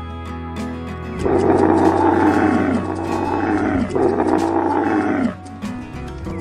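A camel bellowing: two rough, drawn-out groaning calls starting about a second in, each falling in pitch at its end, the first longer. Background music with a steady beat runs underneath.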